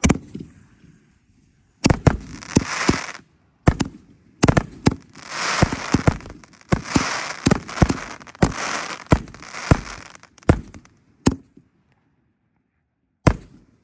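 A 5-inch canister firework shell fired from its mortar tube: a sharp launch report, then a loud bang as it breaks about two seconds later. A string of sharp reports and crackling follows for several seconds, with two more single reports near the end.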